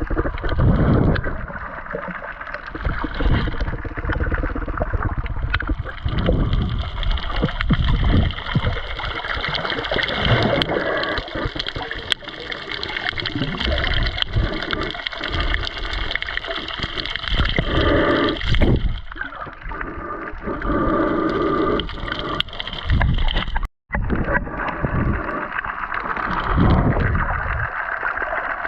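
Underwater sound picked up by a camera in a waterproof housing: water gurgling and sloshing in irregular low surges over a steady hiss. The sound drops out for an instant about 24 seconds in.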